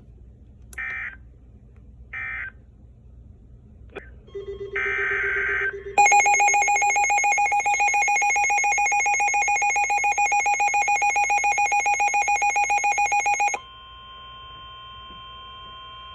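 Emergency Alert System signal between weather warnings: two short data-burst squawks and a longer one, then a loud, rapidly pulsing attention tone for about seven seconds. It drops to a quieter steady tone near the end.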